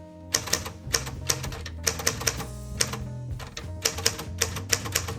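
1939 Smith Corona Standard manual typewriter being typed on: irregular runs of sharp key strikes, with short pauses between words, over background music.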